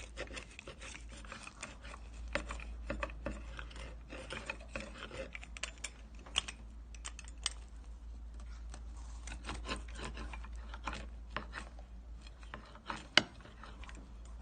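Irregular small clicks, taps and rubbing, as of objects being handled, with one sharper click about 13 seconds in, over a steady low hum.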